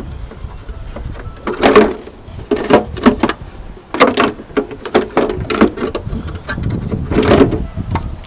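Hard plastic knocking and scraping in a run of irregular clunks as a truck headlight housing is wiggled and pried against the front end of the truck.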